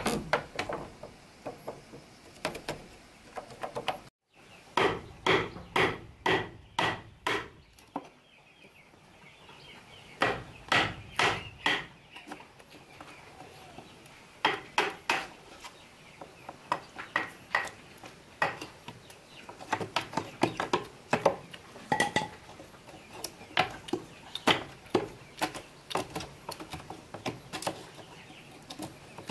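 Hammer blows on wood, in runs of quick, regular strikes about two to three a second with short pauses between runs, as boards are nailed up for a wooden house wall.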